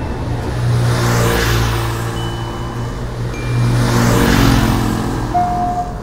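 Tuk-tuk engine sound effects as two auto-rickshaws drive past one after the other, each swelling and fading. A repeating high beeping tone starts near the end: the crossing warning signal coming on.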